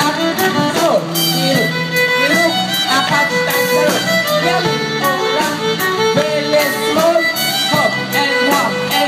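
Irish dance tune led by fiddle, played continuously with a steady beat.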